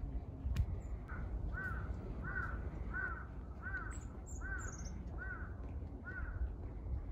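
A crow cawing repeatedly, about seven caws a little under a second apart, starting about a second in, over a steady low rumble. A small bird chirps briefly and high midway through.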